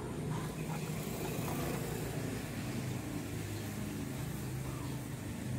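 A steady low engine hum without breaks.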